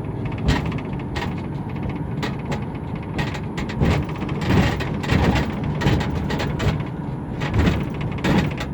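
Road rumble inside a moving 2006 Chevrolet Uplander mobility van, with frequent sharp rattles and knocks from its ramp. The rattling is the expected ramp noise, not the repaired rear suspension.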